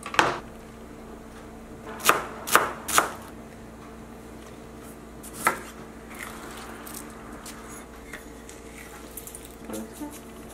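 A kitchen knife knocking on a plastic cutting board: about five sharp, separate strikes, one near the start, three in quick succession around two to three seconds in, and one more in the middle, followed by a few faint taps. A faint steady hum runs underneath.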